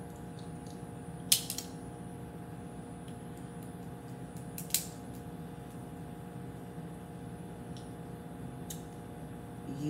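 Boiled crawfish being peeled and eaten by hand: a few sharp shell cracks and clicks, the loudest about a second in and another near five seconds, over a steady low hum.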